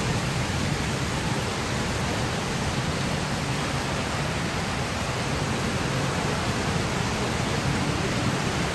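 Heavy rain falling in a steady downpour, an even hiss with no breaks.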